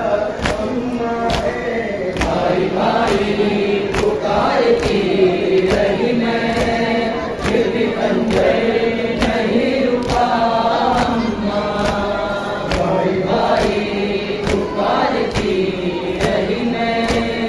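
A chorus of men chanting a noha (Shia lament), carried over horn loudspeakers, with the steady slaps of hand matam as the mourners beat their chests in unison, a little faster than once a second.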